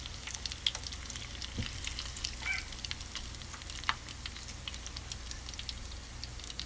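Breaded mozzarella sticks deep-frying in a small saucepan of hot vegetable oil: a steady crackling sizzle made of many small pops.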